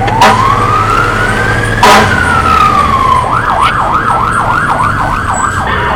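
Fire engine's siren sounding while responding: a slow wail rising then falling, which switches about halfway through to a fast yelp of about four warbles a second, over the truck's steady low engine rumble. Two short sharp bursts sound early on, the first right at the start and the second about two seconds in.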